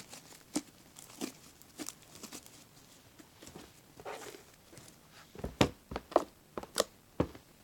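Fluffy shaving-cream slime being picked up and squished by hand, giving irregular sticky crackles and pops, with a run of louder pops about two-thirds of the way through.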